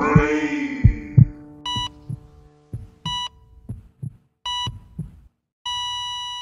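Music fading out, then a heartbeat thumping under a patient monitor's beeps, three beeps about a second and a half apart. About five and a half seconds in, the monitor goes into one long steady flatline tone, the sign of the heart stopping.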